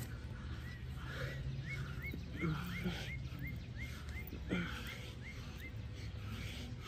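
A bird singing a long run of quick, identical rising chirps, about three a second, over a steady low rumble. A few short low thumps come in the middle and are the loudest sounds.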